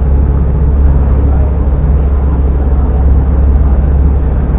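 Tour boat's engine running steadily, a loud low drone with a constant pitch, heard on board.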